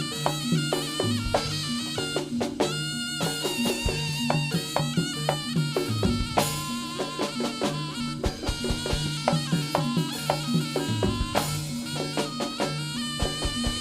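Live jaranan music: a reedy wind instrument carries a wavering melody over drum strokes and a repeating pattern of low pitched tones.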